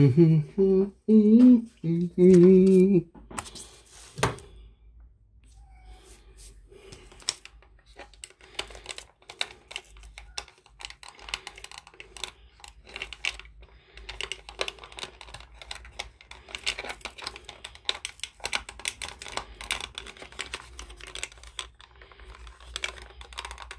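A short hummed phrase for about three seconds, then a long run of small, quiet clicks and taps as fingers handle and fit together small hard plastic parts.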